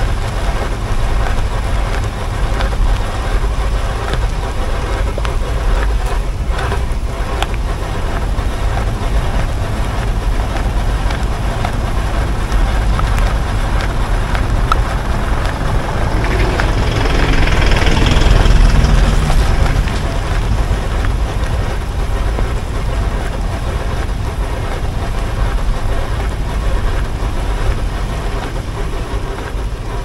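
A BMW F15 X5 rolling slowly on asphalt, heard from a camera low beside a wheel: steady tyre and wind noise. The owner is trying to capture a rear grinding noise in it that has gone unfixed for about six months. The noise swells louder about 17 to 19 seconds in.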